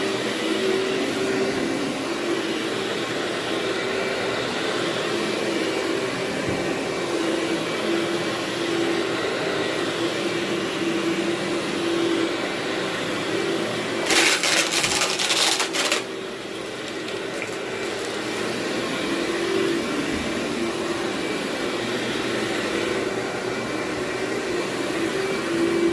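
A vacuum cleaner running steadily over carpet, with a steady hum. About fourteen seconds in there is a louder crackling rush lasting around two seconds, like grit being sucked up.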